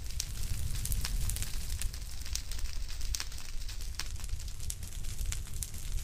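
Fire crackling: irregular sharp pops and snaps over a steady low rumble.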